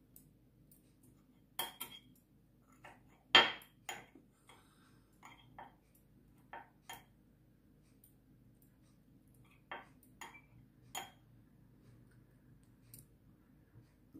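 Metal chopsticks and a metal spoon clinking against a stainless steel pot and a bowl: a dozen or so short, scattered clinks, the loudest about three and a half seconds in. A faint steady low hum runs underneath.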